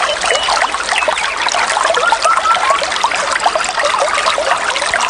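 Water trickling and bubbling steadily, a dense patter of many small droplet sounds.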